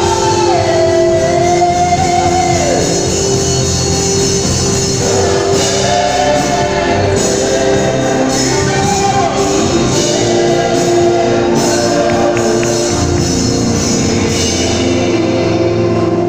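Live gospel praise-and-worship music: singers with microphones singing a melody with held, gliding notes over an amplified band with a steady beat, heard in a large hall.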